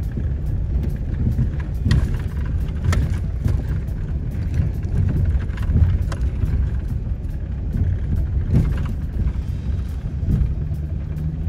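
Pickup truck driving slowly over a rough dirt road, heard from inside the cab: a steady low rumble of engine and tyres, with a few sharp knocks and rattles as it jolts over bumps.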